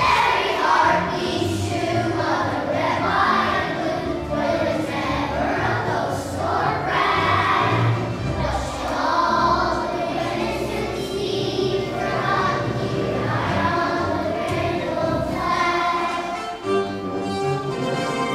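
A choir of young children singing together.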